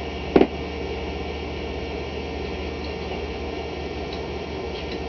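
A single sharp click, as of a small metal part or tool, about half a second in, over a steady hum and hiss, with a few faint light ticks later on.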